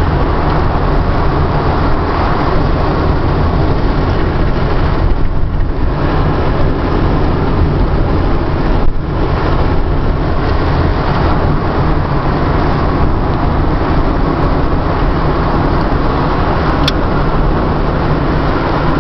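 Steady road noise from inside a moving car on a highway: tyres, engine and wind, with brief dips about five and nine seconds in and one sharp click near the end.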